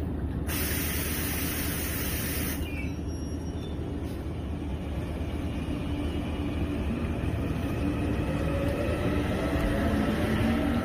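An electric multiple-unit train pulling away from the platform: a hiss of air for about two seconds near the start, then a steady low rumble as it moves off, with a rising motor whine from about seven seconds in as it gathers speed.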